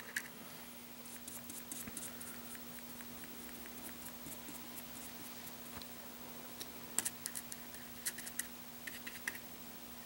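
Faint scratching and light clicks of a paintbrush dabbing acrylic paint onto a plastic radio case, with a few sharper taps in the second half, over a steady low hum.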